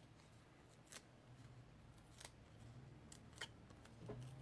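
Near silence with a few faint, short clicks and taps from paper craft pieces being handled on a table.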